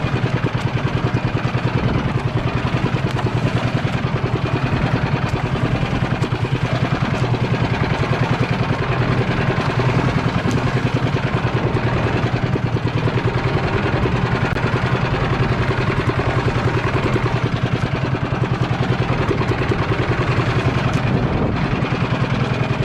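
A small engine running steadily at an even speed, with a fast regular beat and a low hum.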